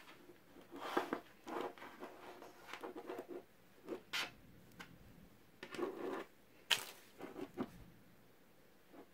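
Irregular rustling and scratching handling noises in short bursts, with a sharp click about seven seconds in.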